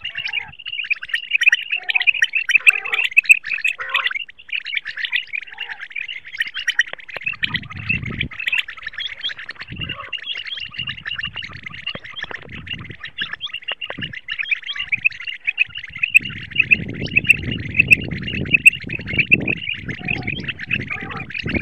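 Common quail calling: a dense, unbroken stream of rapid, high chirps, many calls overlapping. A low rumbling noise comes in briefly around seven seconds and again for the last several seconds.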